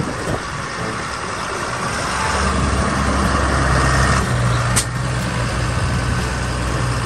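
Diesel engine of a large four-wheel-drive farm tractor running as it drives and turns on asphalt, with a steady low engine note that grows louder from about two seconds in.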